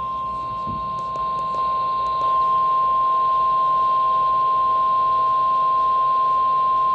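NOAA Weather Radio warning alarm tone: a single steady tone of about 1050 Hz, held unbroken over light radio hiss, announcing that a new warning message follows.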